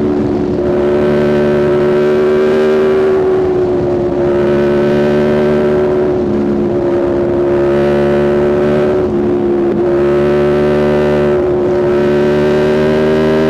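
2021 Aprilia RSV4's V4 engine through a Spark exhaust, running at a steady, fairly high rpm while being ridden. The engine note holds nearly one pitch, swelling and easing slightly every couple of seconds as the throttle is adjusted, and rises a little near the end.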